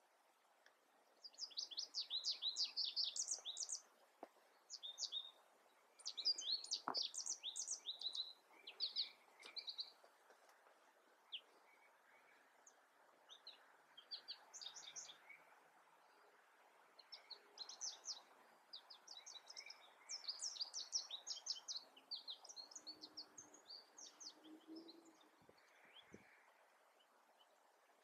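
Wild songbirds singing: bursts of quick, high chirping phrases, one after another with short gaps, over a faint steady background hiss.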